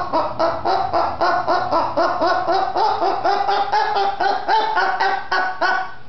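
Blue-fronted amazon parrot calling a rapid, even string of laugh-like "ha ha ha" syllables, about five a second, in time with its head bobbing; the string cuts off at the very end.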